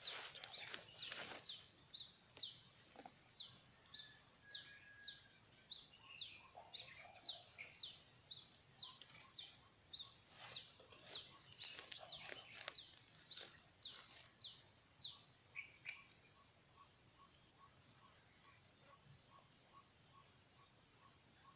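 A bird repeating a short, high call that slides downward, about twice a second, stopping about two-thirds of the way through. Insects trill steadily underneath, with a faint regular pulsing that carries on to the end.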